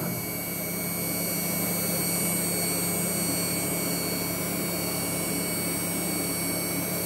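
Mechmate CNC router spindle running with an endmill milling 10 mm S355MC steel plate: a steady high whine and low hum over the even noise of the cut.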